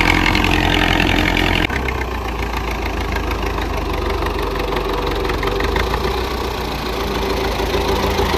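Belarus 510 tractor's diesel engine running steadily under load while it pulls a disc harrow through tilled soil. Just under two seconds in, the sound breaks off abruptly and comes back a little quieter.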